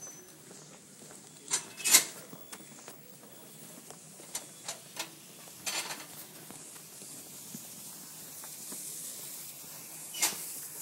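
Scattered clicks and knocks of handling and movement, the loudest about two seconds in and a few more in quick succession around the middle, over a steady hiss.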